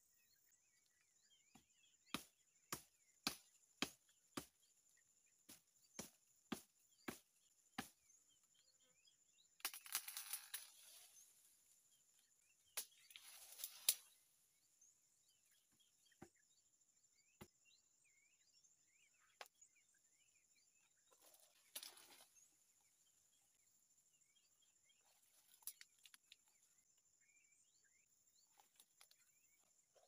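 A man working in the branches of a small tree: a run of about ten sharp cracks, roughly two a second, then a few bursts of rustling leaves and twigs. Throughout there is a faint, steady high insect drone.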